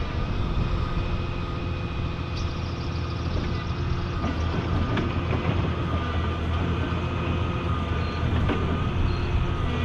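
Volvo tracked excavator's diesel engine running steadily while the hydraulic arm works the bucket, with a few faint knocks.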